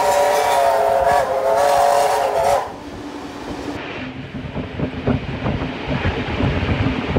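Steam locomotive whistle blowing a long, steady multi-note blast that cuts off about two and a half seconds in. After that comes the running noise of the train, with repeated knocks.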